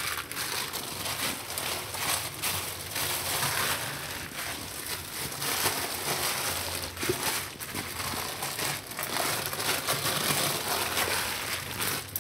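Thin plastic sheet crinkling and rustling in irregular bursts as cashew dough is kneaded and pressed inside it by hand.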